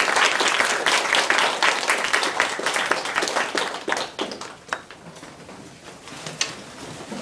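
A small class of students applauding, dense clapping that thins out after about four seconds.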